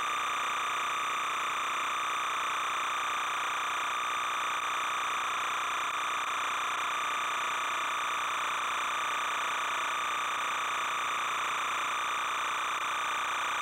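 Steady, unchanging hiss and hum with a strong constant tone near 1 kHz; no sound of the filmed scene itself, only the background noise laid under a silent 8mm home movie.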